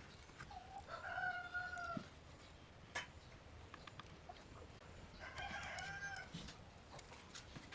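A rooster crowing twice, each crow about a second long, the second about three seconds after the first. A few sharp knocks sound between and after the crows.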